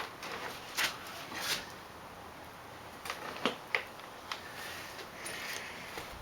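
Scattered light clicks and knocks from handling a pressure washer tipped over to drain its old engine oil out of the dipstick hole.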